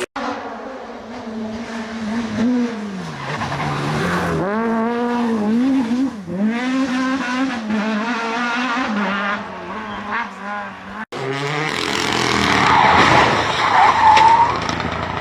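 Rally car engine revving up and dropping back repeatedly through the gears. About eleven seconds in, a sudden cut leads to tyres skidding and squealing over loud engine and gravel noise.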